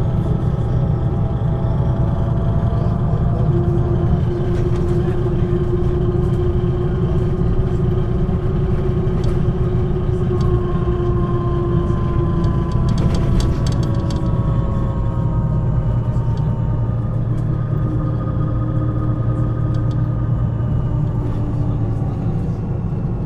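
MAN NG 313 articulated bus's diesel engine running under way, a steady low rumble whose pitch slowly rises and falls with engine speed. A short run of clicks comes about 13 seconds in.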